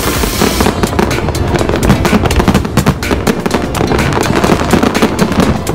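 Aerial fireworks bursting overhead: a dense, rapid run of bangs and crackles from many shells and crackling stars going off at once.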